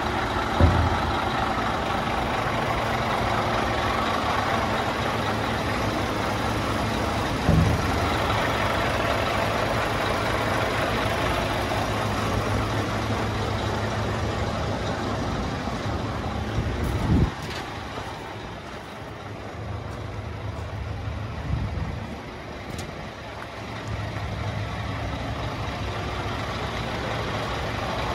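Scania P360 tipper's five-cylinder diesel engine idling steadily, with three thumps, the loudest past the middle, after which the engine sound falls quieter for several seconds.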